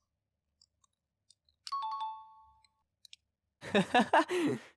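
A click with a short two-tone bell-like ding that rings for about a second. Then, near the end, a louder brief vocal sound whose pitch slides up and down.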